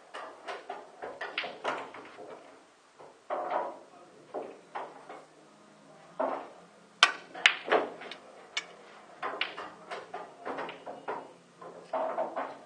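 A 14 oz snooker cue with an Elk Master tip strikes the cue ball hard and low for a deep screw shot: one sharp, loud click about halfway through, then a second hard click about half a second later as the cue ball hits the red. Other knocks and clatter sound throughout.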